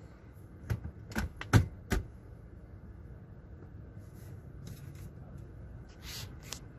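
Water drops falling from the car wash bay onto the car's roof and windshield after the rinse. A cluster of sharp, irregular taps comes about a second in, and a few short splashes follow near the end.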